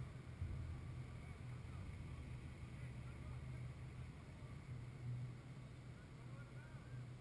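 Low, steady rumble of wind buffeting the microphone in an open-air stadium, with a faint distant call near the end.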